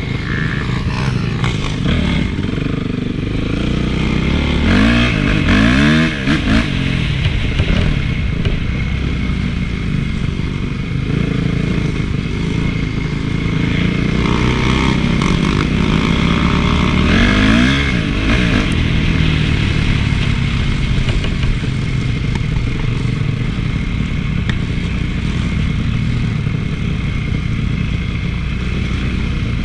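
Honda CRF450 motocross bike's single-cylinder four-stroke engine running while being ridden, the revs rising and falling with the throttle, most plainly about five seconds in and again about seventeen seconds in.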